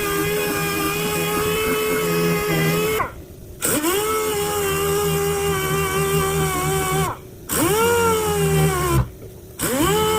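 Power sander working a car's primered fender, running with a steady whine. It is switched off three times, about 3, 7 and 9 seconds in, and each time spins back up with a rising whine.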